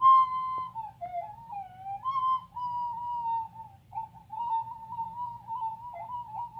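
Recorder played shrilly and unsteadily: a loud high note held briefly, a dip to lower notes about a second in, then a long wavering note that hovers around one pitch.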